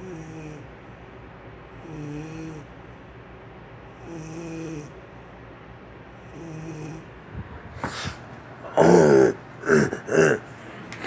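A woman snoring: four short pitched snores about two seconds apart. Near the end, three much louder snorts that sound like a pig, a man imitating the snoring.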